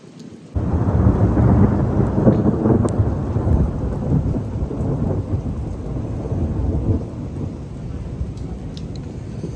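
A thunderclap breaks in suddenly about half a second in and rolls on as a long, loud, low rumble that slowly fades. Heavy rain keeps up underneath it.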